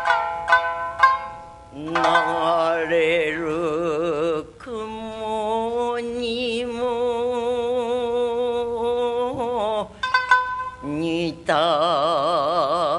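Rōkyoku (naniwabushi): a woman singing long held notes with a wide, wavering vibrato, accompanied by plucked shamisen. Shamisen notes open the passage and come back in briefly between sung phrases about ten seconds in.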